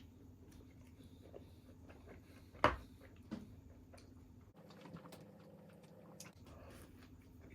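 Faint eating and food-handling sounds: quiet chewing and small clicks, with one sharp knock about two and a half seconds in and a lighter one just after.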